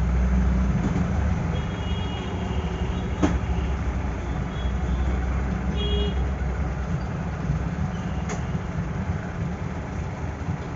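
Steady low rumble of vehicle or traffic noise, with two sharp clicks and a few faint, short high-pitched tones.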